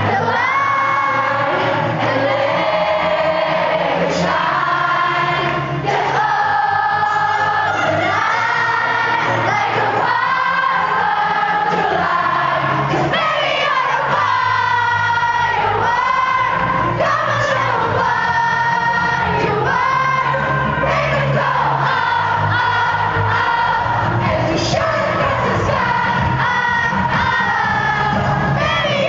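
Live pop concert: a woman sings lead over a loud amplified band, with many voices in the audience singing along.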